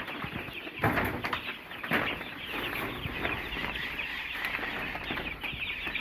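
A brood of first-week chicks peeping all together, a steady chorus of many short, high chirps. Two knocks sound through it, about one and two seconds in.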